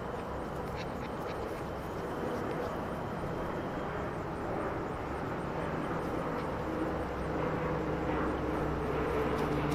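Distant engine droning steadily, growing gradually louder through the second half.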